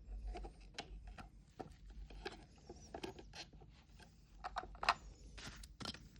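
Irregular small clicks and taps of miniature plastic toy pieces being handled and set into a toy fridge, with a few louder knocks around five seconds in.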